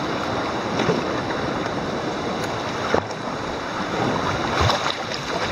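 Sea swell washing and breaking against a rocky shoreline around the kayaks, a steady rush of surf with wind noise on the microphone and a few short splashes.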